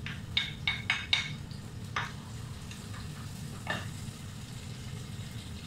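Chopped onions sizzling in a pot as a wooden spoon stirs them. The spoon knocks sharply against the plate and pot several times in the first second or so, and twice more later.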